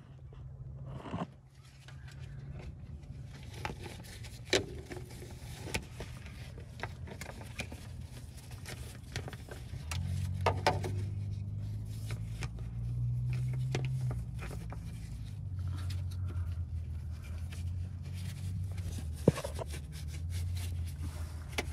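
Scattered scrapes, clicks and light knocks of hand tools and parts being handled under a car's front suspension, over a low steady hum that grows louder about halfway through.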